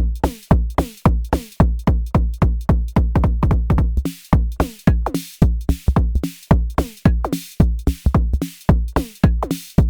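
Arturia DrumBrute Impact analog drum machine playing a looping beat with about 70% swing: deep kicks whose pitch drops on each hit, with snappy percussion and bright hi-hat strokes in between.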